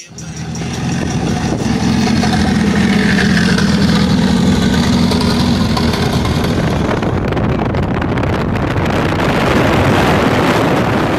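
Car engine running loudly, a steady drone that gives way to a noisier rush about seven seconds in.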